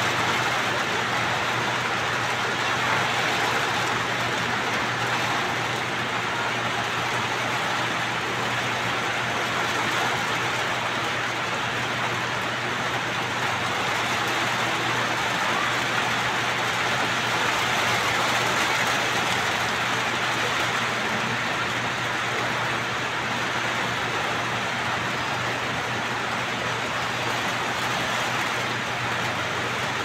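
Heavy rain falling steadily, an even, unbroken hiss with no let-up.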